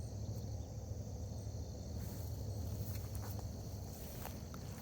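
Steady outdoor insect chirring, like crickets, over a constant low hum, with a few faint clicks.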